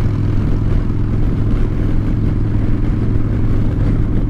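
Harley-Davidson Dyna Fat Bob's V-twin running through Vance & Hines Short Shots exhaust, held at a steady speed with no change in pitch.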